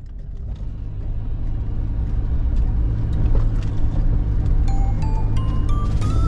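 Suzuki Jimny JA11 driving, a steady low engine and road rumble fading in at the start. Near the end, music comes in with a rising run of single notes.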